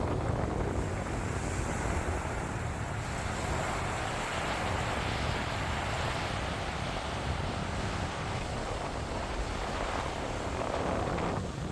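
Wind buffeting the microphone with a low rumble, over the hiss of ocean surf that swells in the middle and again near the end.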